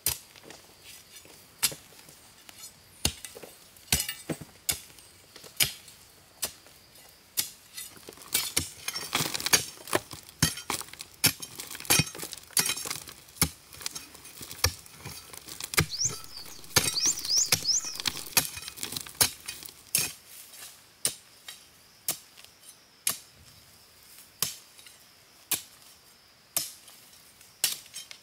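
A steady series of sharp blows from a hand tool striking, about one a second, as in chopping or hammering wood. A bird chirps briefly about two-thirds of the way through.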